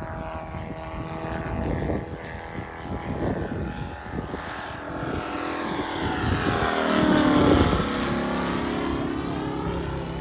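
Large-scale model DHC-2 Beaver's Moki 300 cc four-stroke radial engine and propeller in flight. The sound grows louder to a peak about seven and a half seconds in as the plane passes overhead, then drops in pitch as it moves away.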